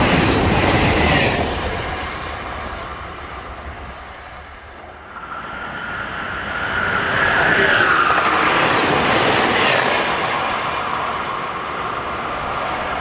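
Amtrak train with private passenger cars passing at speed: rushing wheel and car noise with clickety-clack that fades over the first few seconds. It then swells to a second loud stretch of rail noise with a high whine that drops in pitch, before easing off.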